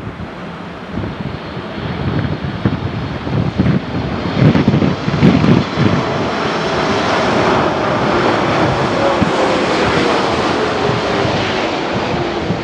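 Boeing 747-8's four GEnx turbofan engines on landing approach: a jet roar that builds about halfway through and holds, with a faint tone sliding down in pitch as the aircraft passes. Wind buffets the microphone in the first half.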